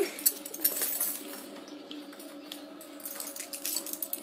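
Small clicks and clinks of toys being fumbled with in the hands, over a faint steady hum.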